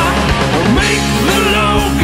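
Rock music in an 80s style, with guitar over a steady beat; no lyrics are sung in this stretch.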